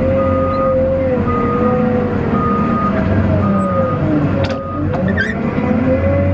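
Cat 950M wheel loader heard from inside its cab: the engine running under load with a whine that rises and falls in pitch, and a backup alarm beeping steadily about once a second. A short sharp hiss cuts in about four and a half seconds in.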